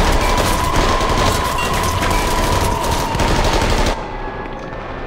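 Sustained automatic gunfire from several submachine guns firing together in rapid overlapping shots, cutting off abruptly about four seconds in. A steady high-pitched tone runs beneath the shooting.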